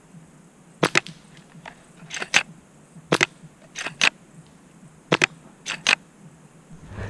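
Airsoft guns firing: a series of sharp pops, mostly in quick pairs, about one pair a second.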